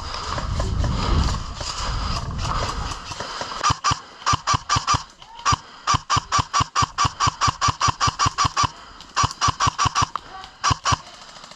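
Airsoft gun firing several quick bursts of rapid sharp clacks, about eight shots a second. The bursts come after a few seconds of rustling movement.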